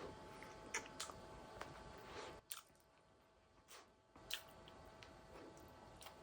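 Close-miked eating: soft biting and chewing of a donut, with several short, sharp mouth clicks scattered through it and a quieter pause in the middle.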